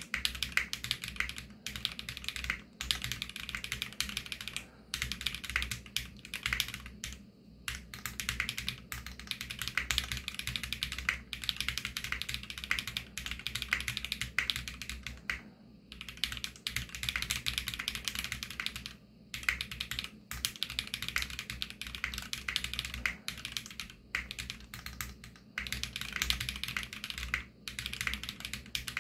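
Fast continuous typing on a 65% mechanical keyboard with lubed Varo Panda tactile switches, Krytox-lubed, and PBT keycaps: rapid key clacks in long runs with a few brief pauses.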